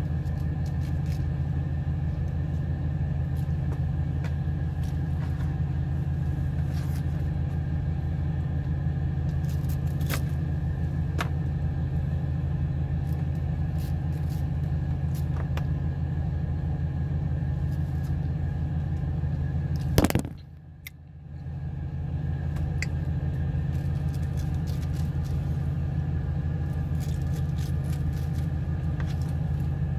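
A steady low rumble runs throughout, with faint scattered clicks of a kitchen knife cutting pineapple on a plastic cutting board. About twenty seconds in, a sharp click is followed by the rumble dropping out for a second or two before it resumes.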